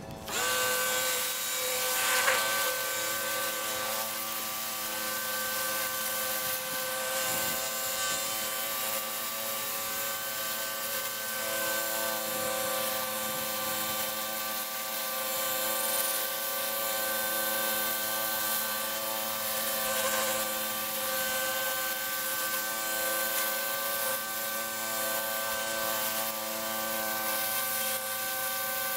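Ryobi electric pressure washer running steadily, its motor and pump giving a held whine under the hiss of the water jet striking the driveway.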